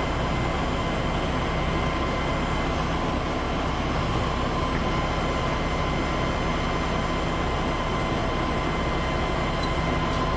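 Steady hum and whir of running machinery, with a few constant whining tones over a low hum, unchanging throughout.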